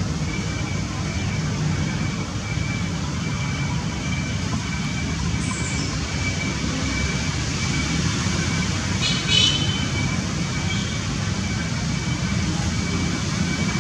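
Steady low outdoor rumble, like distant traffic or wind on the microphone, with a faint steady high tone over it. A short high squeak comes about nine seconds in.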